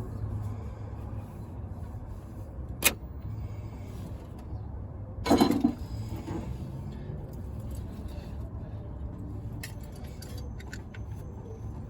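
Metal hand tools clinking during work in an engine bay: a sharp click about three seconds in, a louder clatter about five seconds in, and a few light clicks near the end, over a steady low hum.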